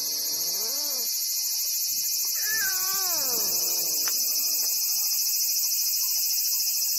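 A tabby stray cat meowing at a person twice: a call that trails off about a second in, then a longer one with a rise and fall about two and a half seconds in. Both sound over a loud, steady, high-pitched chorus of insects.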